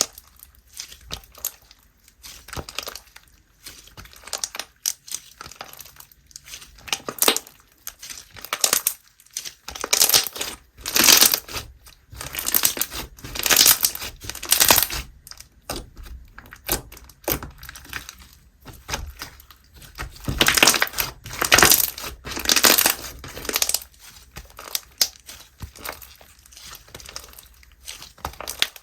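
Foam slime being squeezed, pressed and kneaded by hand, making irregular bursts of crunchy noise, with two louder stretches in the middle.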